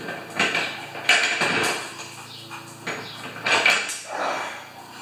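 Chain hoist and its hanging steel chain clinking and rattling as they are handled, in several short bursts of metal clatter: about half a second in, again around one to two seconds, and once more near the end.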